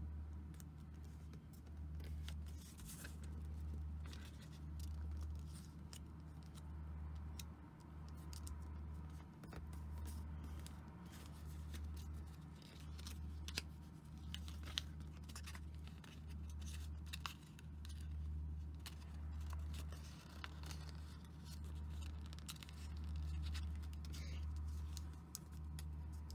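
Origami paper being folded and creased by hand: soft crinkles, scratches and small clicks scattered throughout, over a steady low hum that swells and dips.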